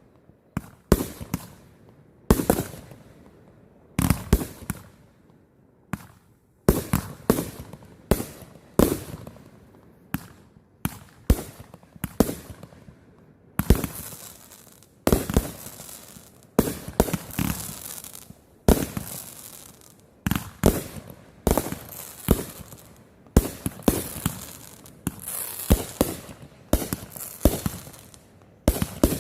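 Fireworks going off in rapid succession: sharp bangs, about one to two a second, each trailing off, with crackling between them through the middle stretch.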